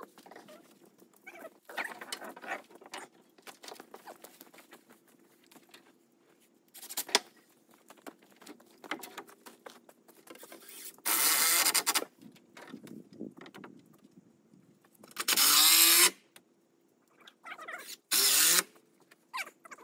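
Cordless drill run in three short bursts of about a second each at a wooden beam, after a stretch of light knocks and clicks.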